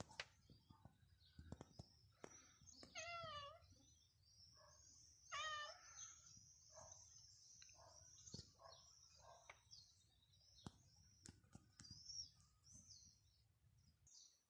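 A calico cat meowing twice, about two seconds apart, each meow wavering in pitch; small birds chirp faintly and high in the background.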